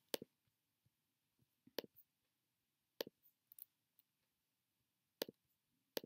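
A handful of isolated, sharp clicks from a computer keyboard and mouse, spaced roughly a second apart, with near silence between them.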